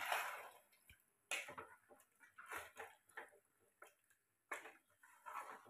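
A spatula stirring chicken masala gravy, thinned with water and mint paste, in a pressure cooker: faint, irregular wet strokes and scrapes against the pot, about one or two a second.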